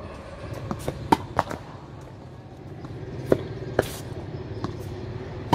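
Tennis ball being struck by rackets and bouncing on a hard court during a rally: a string of sharp pops, the loudest about a second in and about three and a half seconds in, over a steady low hum.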